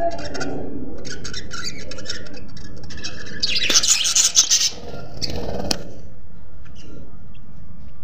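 Budgerigars in a nest box: short raspy chirps from the chicks and adult, with a louder scratchy rustle about halfway through and a sharp click soon after.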